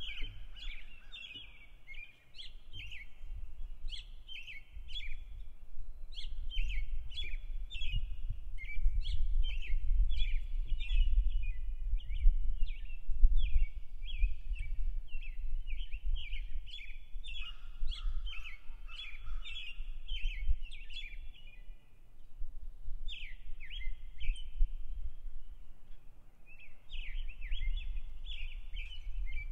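Songbirds singing at dawn: a dense chorus of short, quick chirps and trills with hardly a break. Under it is a steady low rumble.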